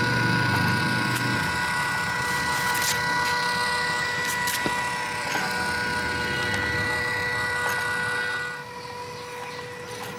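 Small electric motors running with a steady high whine over a rough, noisy rumble. About eight and a half seconds in, one tone cuts out and the sound drops noticeably quieter.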